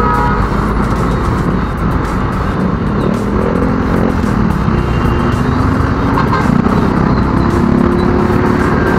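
Road and engine noise from a motorcycle riding in dense, slow traffic, with other motorcycles and cars close around; engine tones rise and fall in the middle.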